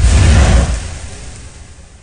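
A loud whoosh-and-boom transition sound effect with a heavy rumble underneath, hitting at once and then fading away over about two seconds.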